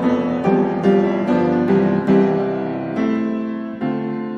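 Background piano music: single notes struck at an even pace, moving to longer held notes in the second half.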